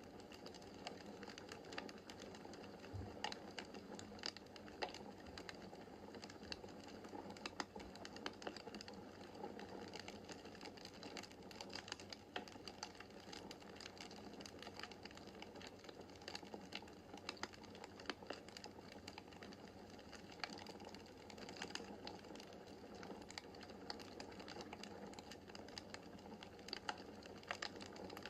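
Wood fire crackling in a fireplace, faint: frequent irregular sharp snaps and pops over the steady rush of the burning logs.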